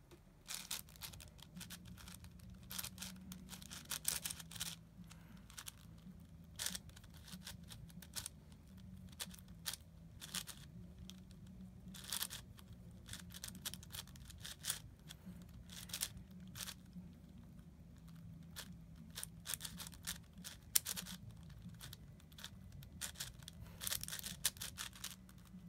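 Rapid, irregular plastic clicking and scraping of an MGC 6x6 speedcube's layers being turned fast during a timed solve; the new cube is running dry, without lube. A low steady hum sits underneath.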